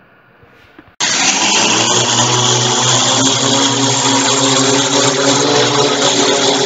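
Small quadcopter's electric motors and propellers running steadily at high speed, a loud, even hum; it starts abruptly about a second in.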